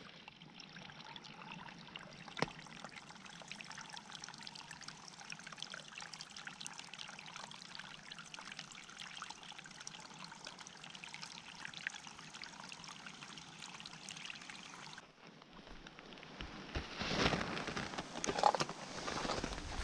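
Running water trickling steadily, a fine patter of small splashes. It cuts off abruptly about fifteen seconds in, and a few louder, irregular noises follow near the end.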